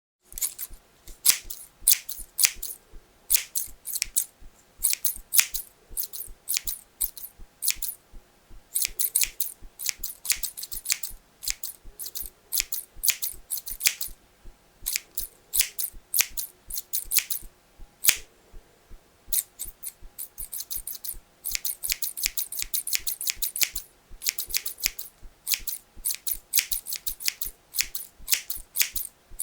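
Hairdressing scissors cutting hair: crisp, rapid snips of the blades closing, in quick runs of several cuts with short pauses between them.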